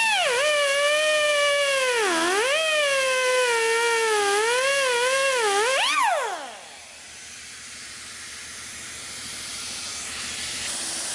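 Air-powered cutoff wheel running with a high whine whose pitch sags each time it is pressed into the metal of a rifle trigger lock and recovers as it eases off. About six seconds in it is released and winds down, leaving a steady hiss of compressed air escaping from a leaking fitting.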